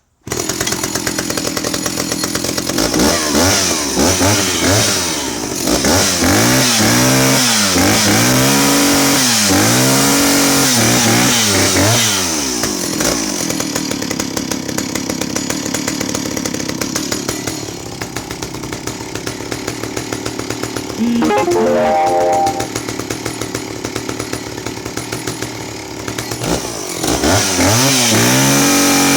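Stihl 041 AV 61cc two-stroke chainsaw running, its throttle blipped again and again so the engine rises and falls between idle and high revs. It then settles to a lower, quieter idle for several seconds before being revved again near the end. The crank seals have just been replaced to cure an air leak that had made the idle rough.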